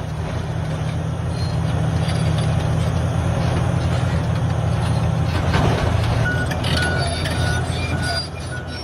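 Diesel engine of a Komatsu D575 bulldozer running heavily under load, with a backup alarm beeping about twice a second during the last couple of seconds.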